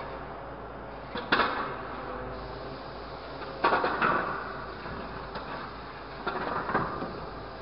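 Hydraulic orange-peel grapple on a grapple truck gripping scrap metal: three bouts of metal clanking and clattering, about a second in, near the middle and toward the end, over the steady hum of the truck's engine and hydraulics.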